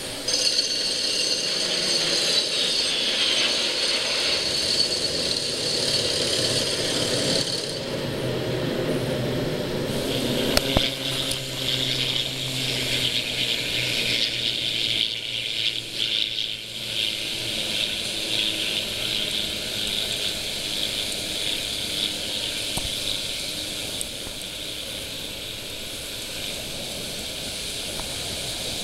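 Jet aircraft engine noise from planes passing overhead, a high whine falling in pitch a few seconds in.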